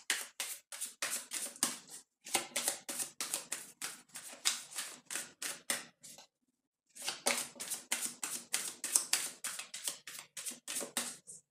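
A deck of oracle cards being shuffled by hand: a quick run of soft card slaps and flicks, several a second, with two short pauses.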